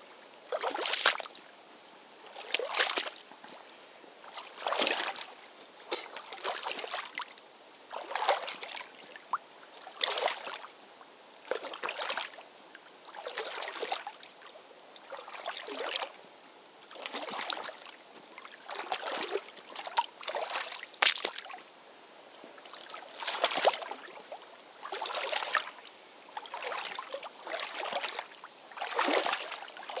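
Rubber waders wading through shallow, muddy stream water: a splash and slosh of water with each stride, one roughly every one and a half to two seconds at a steady walking pace.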